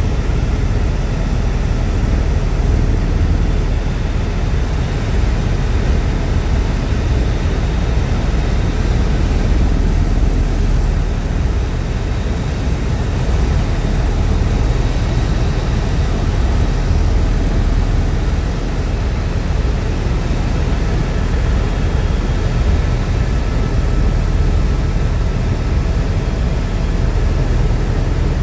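Helicopter in steady cruise heard from inside the cabin: a loud, unbroken drone of engine and rotor, heaviest in the low end, with a faint steady high whine over it.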